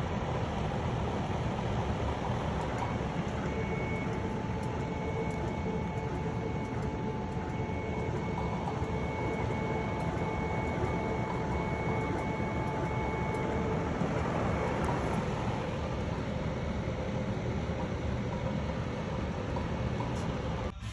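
A desktop laser engraver running while it cuts: a steady fan-like rush with a constant hum, and a series of short, evenly spaced high-pitched tones from about three seconds in until past the middle.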